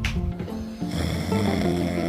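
Background music with stepped notes, over a snoring sound.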